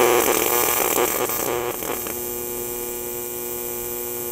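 AC TIG welding arc from a Sanjoe TIG200P AC/DC welder on 2 mm aluminium sheet, at 100 A, 120 Hz AC frequency and 25% electrode-positive balance. The arc strikes suddenly with a harsh crackle for about two seconds, then settles into a steady buzzing hum.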